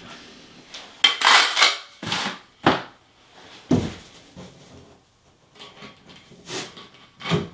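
Hard clinks, clatters and knocks of porcelain wall tile and plastic leveling clips being set by hand: an uneven run of sharp clacks, loudest a little over a second in, with a duller thump near four seconds.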